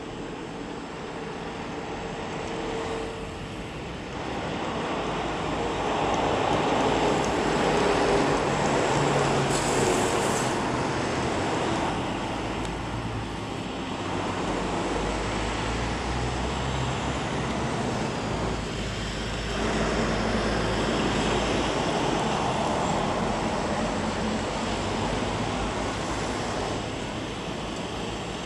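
Road traffic: vehicles going by one after another, their engine and tyre noise swelling and fading over a steady low rumble.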